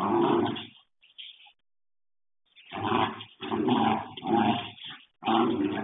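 Border collie growling in play while wrestling with a cat: five short growls of about half a second each, one right at the start and four close together in the second half, heard through a home security camera's microphone.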